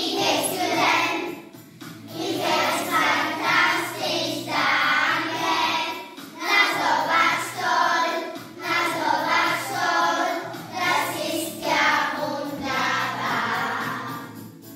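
A class of young children singing a song in German together, in short phrases with brief breaks between them.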